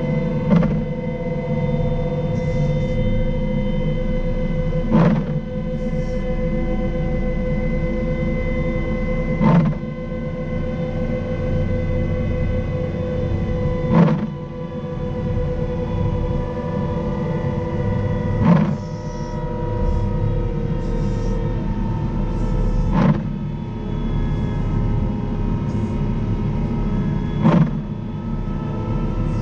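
Caterpillar 926M wheel loader's diesel engine running steadily under load while pushing a snow plow along the road: a low rumble with a steady whine of several tones. A sharp click comes about every four and a half seconds.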